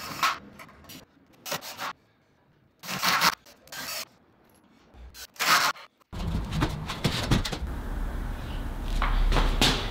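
Wooden 2x4 boards scraping and rubbing as they are handled, in about five short bursts with silence between them. From about six seconds in, a steady low rumble of background noise takes over.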